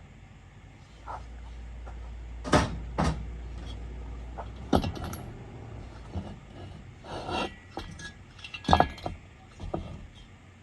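Metal tools and parts clinking and knocking. There are several sharp knocks, the loudest near the middle and about three-quarters of the way through. A low hum sounds through the first few seconds.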